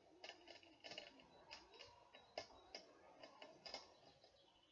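Near silence with faint, irregular light clicks and taps as a porcelain stoneware tile is handled and set in place.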